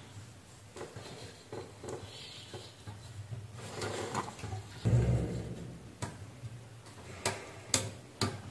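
Workbench handling noise: hands moving wires and a thin probe give light clicks, taps and rustles, with a duller thump about five seconds in and a few sharp clicks near the end.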